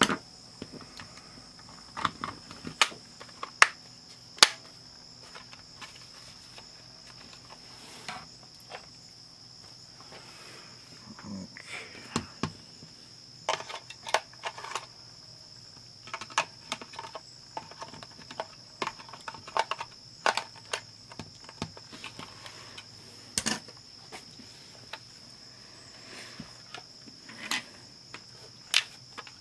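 Scattered small clicks and knocks of hands handling the plastic case and parts of a portable cassette player during reassembly, over a steady high-pitched whine.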